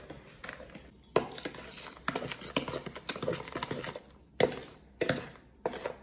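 Wooden spatula stirring beaten eggs and sugar in a mixing bowl, scraping round the bowl with several sharp knocks against it, the loudest about a second in and just after four seconds in.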